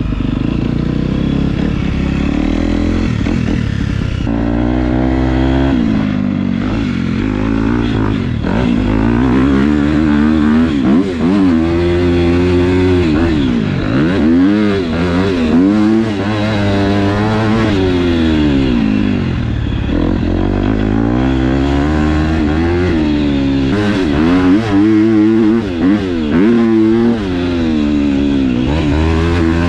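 KTM four-stroke motocross bike with a Yoshimura RS12 exhaust, being ridden hard. The engine revs up and drops off over and over as the throttle is opened and shut.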